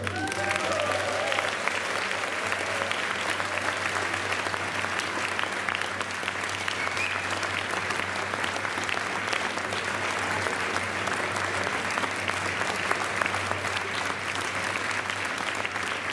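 Audience applauding steadily, with a few voices calling out near the start.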